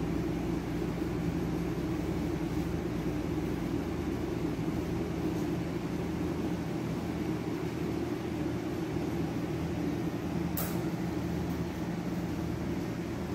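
Steady low mechanical hum, with a single faint click about ten and a half seconds in.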